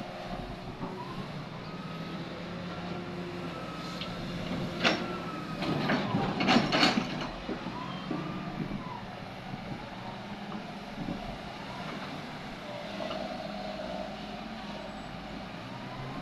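Excavator diesel engine running steadily, with a hydraulic whine that rises and falls in pitch as the machine works. About five to seven seconds in comes a loud burst of clanks and rattles from rock being handled.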